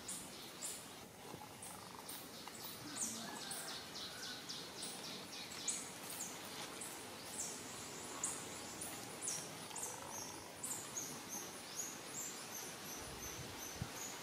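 Forest ambience: a steady run of short, very high-pitched chirps, two or three a second, over a faint outdoor hiss.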